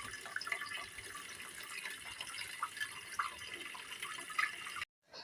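Food cooking in a pot on the stove: steady bubbling and light sizzling with many small irregular pops and crackles, which cuts off abruptly near the end.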